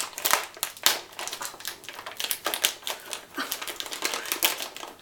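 Plastic snack packaging crinkling and crackling as it is handled and opened, a dense run of irregular crackles.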